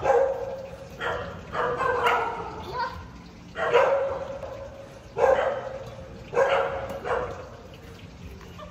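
A dog barking over and over in short single barks, roughly one a second, with a few longer pauses.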